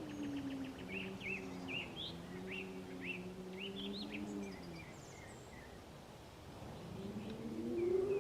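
Cows mooing: a long low moo fades out about halfway through, and another moo swells up near the end. Small birds chirp in the background during the first half.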